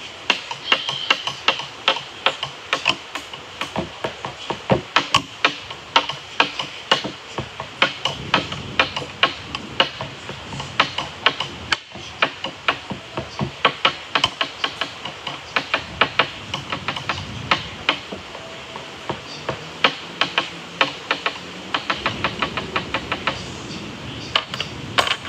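Rapid, irregular sharp taps, several a second.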